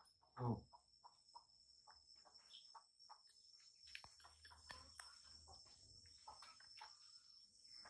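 Near silence: a steady faint high-pitched tone with small scattered clicks of handling, and one brief louder sound sliding downward in pitch about half a second in.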